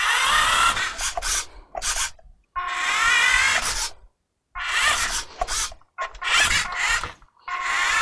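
Playmobil remote-control police car's small electric drive motor whining in about five bursts of a second or so, each rising in pitch, with sharp stops between.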